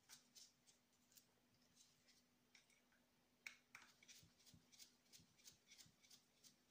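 Faint, small metallic clicks and ticks, a few a second, with one sharper click about three and a half seconds in: a screwdriver working the small screws out of a nitro model engine's crankcase backplate.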